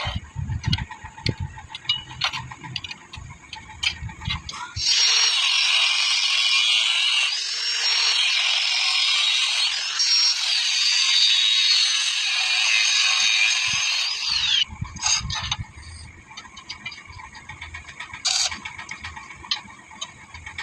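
Arc welding on steel square tube: a loud, steady hiss that starts about five seconds in and cuts off sharply about ten seconds later. Before and after it come scattered clicks and knocks of metal being handled.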